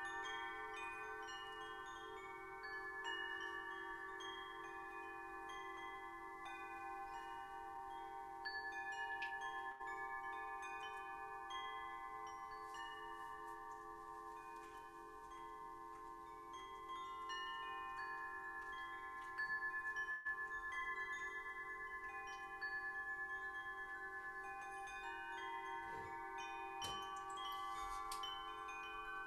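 Wind chimes ringing, many bright tones struck one after another and left to ring and overlap, over a steady low drone.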